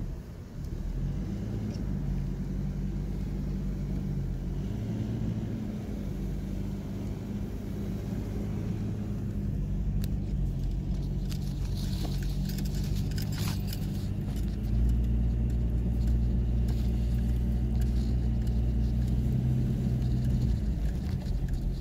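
A car engine runs steadily while driving: a low hum that shifts in pitch a few times and gets louder about two-thirds of the way through. There are some rattles and clicks around the middle.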